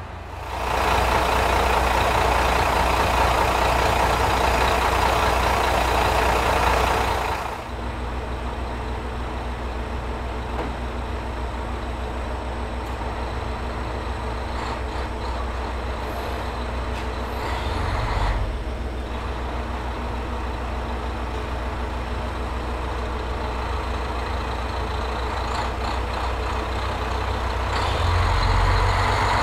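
Diesel railcars idling at a station platform, with a steady low engine drone. For the first seven seconds or so a loud, even rushing hiss lies over the drone, then stops.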